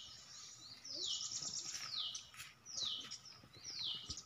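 A bird calling over and over: a short high note sliding downward, repeated about once a second, five times.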